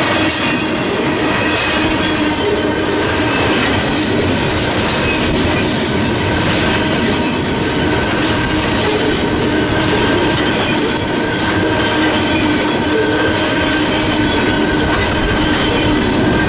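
Tank cars of a long freight train rolling past close by, steel wheels clattering over the rail joints, with steady whining tones from the wheels running under the clatter.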